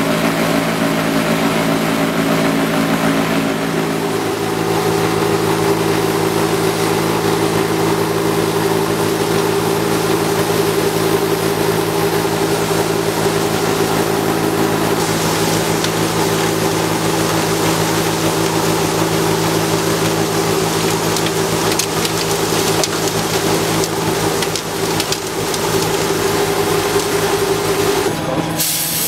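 Tractor engine and the Westa self-loading snow wagon's snow blower running steadily, throwing snow up the chute into the wagon's box: a steady machine drone under a hiss of spraying snow. The hiss grows louder about halfway through.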